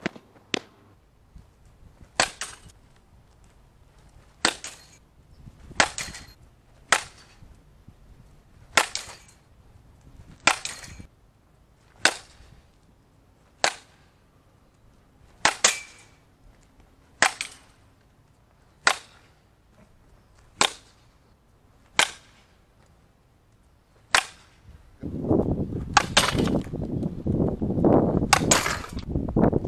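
Softball bat striking softballs over and over, a sharp crack every one to two seconds, about fifteen hits in all. In the last few seconds a loud low rumble joins the hits.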